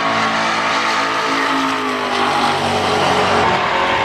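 Muscle-car engines running loudly in a drag race, their pitch gliding down and back up several times as they rev.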